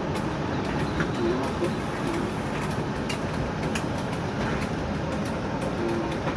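TEP70 passenger diesel locomotive running under way, heard from on board as a steady mechanical running noise with scattered light clicks.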